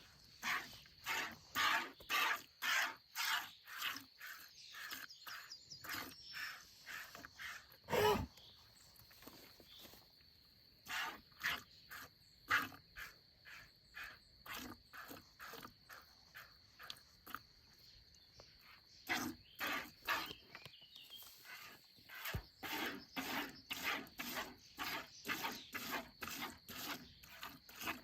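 Hand milking a cow: streams of milk squirting from the teats into a pail in a steady rhythm of short squirts, about two or three a second. One short, louder sound breaks in about eight seconds in.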